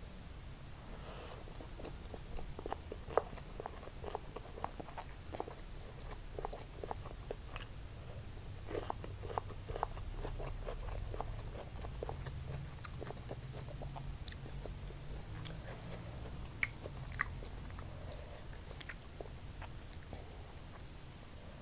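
Close-miked chewing of fried rice, with many short wet mouth clicks, densest in the first half, over a steady low hum.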